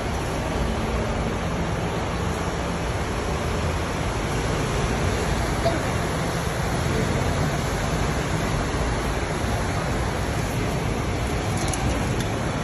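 Steady low rumble of idling double-decker buses mixed with the continuous hiss of a busy bus interchange.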